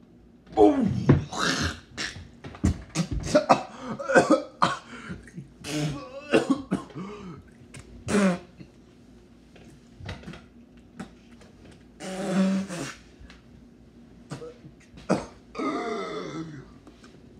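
A man coughing, gagging and clearing his throat in short irregular bursts, the sound of retching at a foul-tasting jelly bean, with a longer open-mouthed retching groan near the end.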